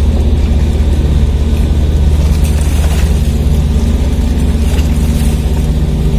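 A ro-ro car ferry's diesel engines run with a steady low drone as the ship manoeuvres in to its berth.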